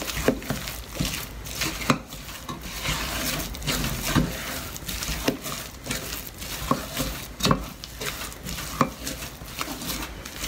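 A spatula stirring and scraping a thick, stiff flour halwa dough around a granite-coated nonstick pot, with a few scattered knocks of the spatula against the pot. The halwa is in its final stage, being worked with extra ghee after the water has cooked off.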